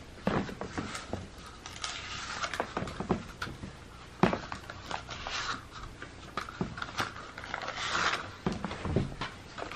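Paper cupcake liners crinkling, with a scatter of light clicks and taps as dry cat treats are doled out into them.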